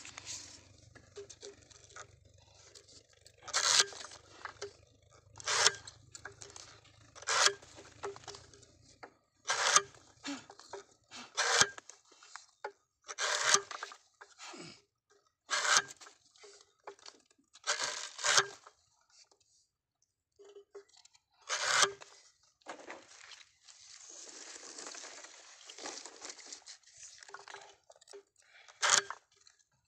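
Lever-operated sugarcane bud cutter chopping cane stalks into short single-bud setts. It gives a sharp crunching cut roughly every two seconds, about a dozen in all, with smaller crunches between them.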